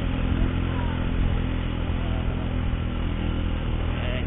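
Motorcycle engine running steadily while carrying riders up a hill track, heard from on the bike.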